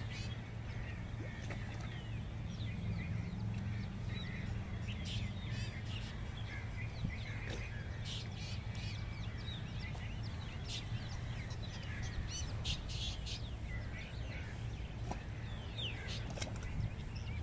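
Outdoor birds chirping and calling, many short quick chirps scattered throughout, over a steady low background rumble.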